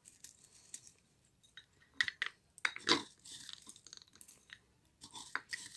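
Dried herbs and stems crackling and crunching between the fingers as they are pressed into a glass jar, in scattered short crackles that are loudest about two and three seconds in.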